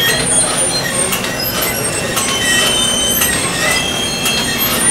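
Small film tube-making machine running, pulling printed film off a reel through its rollers: a steady mechanical rattle with many short high squeaks and frequent sharp clicks.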